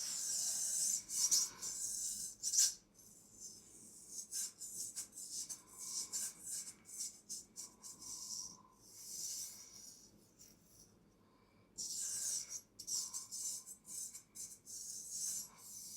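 Straight razor scraping in close-up, in short, high, hissy strokes with light ticks. The strokes are dense and loud at the start, sparse and quieter through the middle, then dense again near the end.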